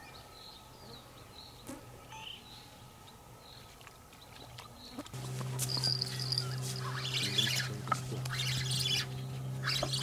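Songbirds chirping and singing, faint at first and louder and busier from about halfway, when a steady low hum also comes in and holds.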